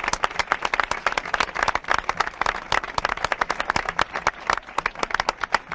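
A crowd clapping, many hands at once in a dense, irregular patter of claps.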